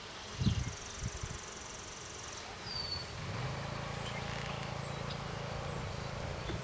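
Honeybees buzzing around an open hive, with two low knocks about half a second and a second in; from about three seconds in a steadier, louder low buzz sets in, as of bees flying close to the microphone.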